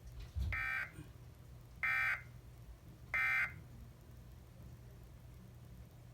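Emergency Alert System end-of-message signal: three short SAME digital data bursts about 1.3 seconds apart, marking the end of a broadcast flash flood warning.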